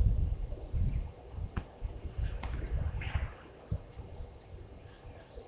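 Insects trilling steadily at a high pitch, over an uneven low rumble that eases after the first second or so, with two sharp clicks in the middle.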